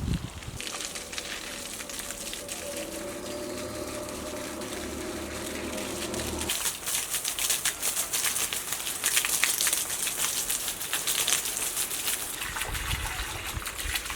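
Water running and splashing, with a steady mechanical hum for a few seconds early on. The splashing grows denser and more spattery from about six and a half seconds in.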